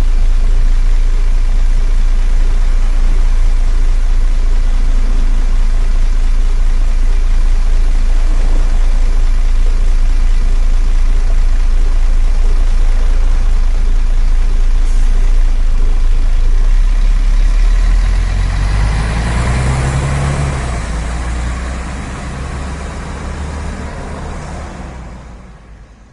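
Bus engine running with a steady low rumble; about two-thirds of the way through the engine revs up as the bus drives off, and the sound fades away near the end.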